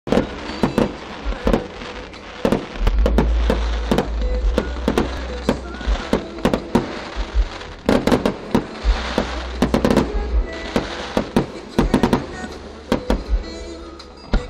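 Fireworks display: aerial shells bursting in a rapid run of sharp bangs, with crackling between them and a dense cluster of bangs about eight seconds in.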